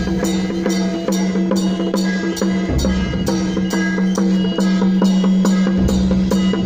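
Temple procession percussion music: a fast, even beat of sharp clacking strikes about three a second, with a heavy drum hit about every three seconds over a steady held note.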